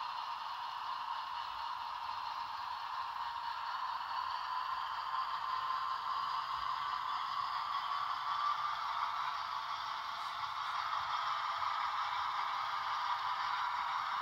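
Model diesel locomotive running along the track: a steady whir of its small motor and wheels, growing a little louder near the end as it comes closer.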